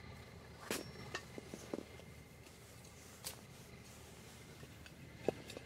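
Hatchet splitting thin strips of kindling from a board on a log chopping block: a few scattered sharp wooden knocks and cracks.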